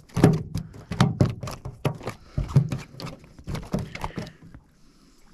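A run of irregular dull thumps and knocks, several a second at first, thinning out and dying away near the end.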